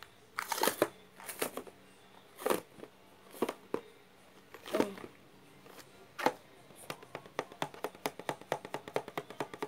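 Hands squeezing and handling a small orange homemade squishy toy: scattered short clicks and crackles about a second apart, turning into a quick run of ticks, several a second, in the last few seconds.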